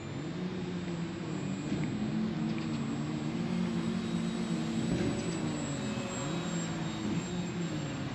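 Small electric RC foamboard bush plane's motor and propeller droning in flight, the pitch slowly rising and falling as it flies.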